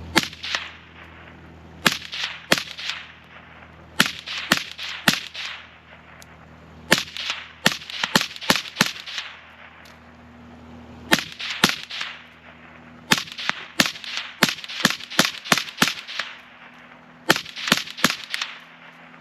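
Suppressed Kel-Tec P50 pistol in 5.7x28mm fired in quick strings of two to eight shots, about two dozen in all. Each shot is a sharp crack with a short echo trailing off.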